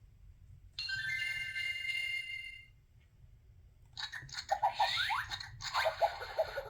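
Electronic sound-book button playing clips through its small speaker. First comes a held chime chord of about two seconds, then, after a short pause, two bursts of busy jingle music with quick sliding notes.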